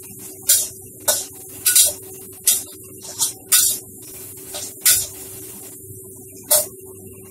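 Metal spatula scraping and clanking against a stainless steel wok while stir-frying vegetables, about eight sharp irregular strokes, over a steady low hum.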